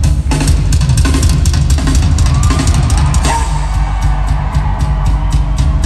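Rock band playing live and loud, driven by dense, hard-hit drumming on a full kit: bass drum, snare and cymbals, heard from the crowd in an arena.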